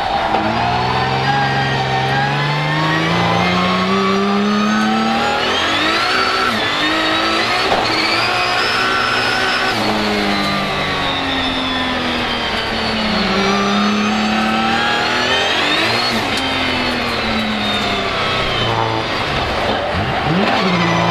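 Nissan GT-R R35's VR38DETT twin-turbo 3.8-litre V6, swapped into a Nissan 200SX S13 drift car, heard from inside the cockpit at hard throttle. The revs climb and drop several times, rising over the first few seconds, peaking about ten seconds in, and climbing again around sixteen seconds.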